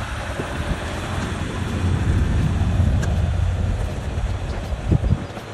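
Jeep Wrangler EcoDiesel's turbodiesel V6 running as it drives past, its low rumble swelling about two seconds in and easing off as it moves away. A short knock near the end.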